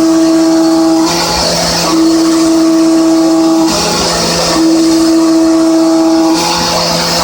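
A Hermle C20U machining centre trochoidal milling with a 16 mm solid carbide end mill at 4800 rpm, 30 mm deep with a 1 mm step-over. The cutter sings a steady high-pitched tone for about two seconds per pass, then breaks off briefly with a hiss as it comes out of the cut, in a regular cycle about every three and a half seconds.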